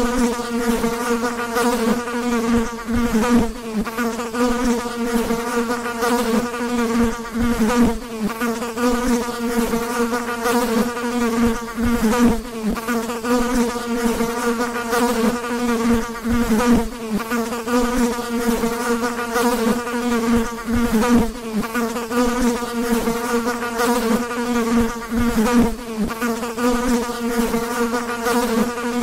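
Flies buzzing: a continuous low, rich hum of beating wings, wavering in loudness.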